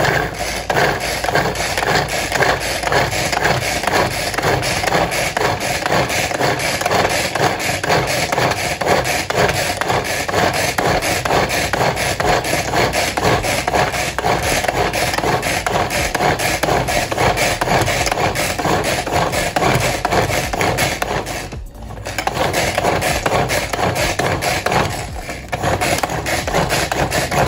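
Manual pull-cord food chopper pulled fast and continuously, its blades churning through onion, garlic, lovage and parsley in the plastic bowl to chop them fine. The run of pulls breaks off briefly twice, about 22 and 25 seconds in.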